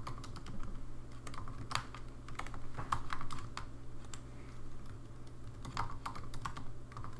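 Typing on a computer keyboard: a run of irregular key clicks, with a steady low hum underneath.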